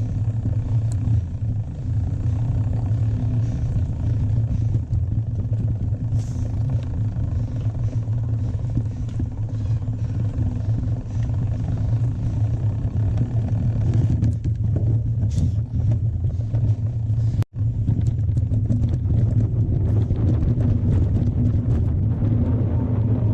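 Mountain bike riding a trail: a steady, heavy low rumble of wind and tyre noise on the camera, with scattered small clicks and rattles from the bike.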